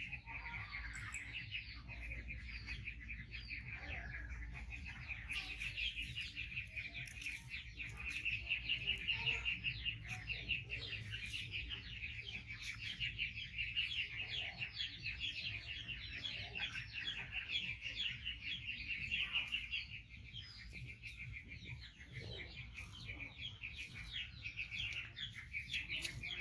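Birds chirping: a dense, continuous run of rapid high chirps.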